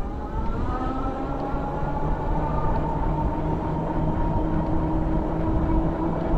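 Ariel Rider Grizzly e-bike's hub motors whining as the bike picks up speed, the pitch rising over the first two seconds or so and then holding steady, over a low rumble.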